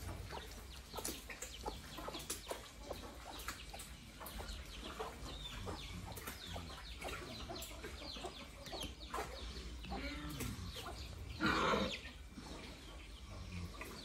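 Young chicks peeping repeatedly in short high chirps. A low grunt comes near ten seconds in, and a loud short cry, the loudest sound, about eleven and a half seconds in.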